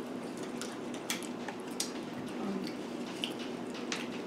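Eating at a table: scattered small clicks and taps from a plastic dip cup, plates and chewing, over a steady low room hum.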